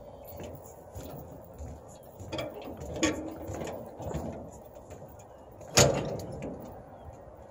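Irregular knocks and thumps of footsteps on a floating dock, the loudest about six seconds in, over a faint steady noise.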